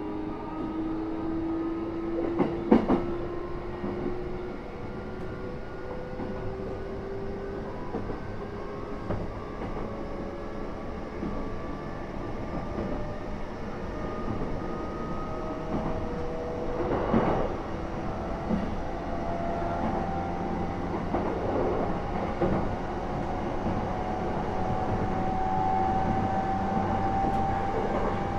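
Interior running sound of an E233-3000 series electric train: the traction motor whine rises slowly in pitch as the train gathers speed, over a steady rolling rumble. The wheels clack over rail joints a few times, loudest about three seconds in and again near the middle.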